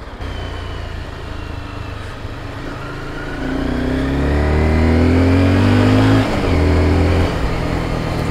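Sport motorcycle engine pulling away: it revs up with rising pitch for a few seconds, drops sharply at a gear change about six seconds in, then runs on more steadily.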